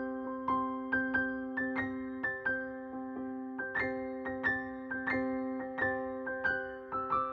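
Background music: a gentle electric piano melody of plucked-sounding notes, about two a second, over a steady held low note.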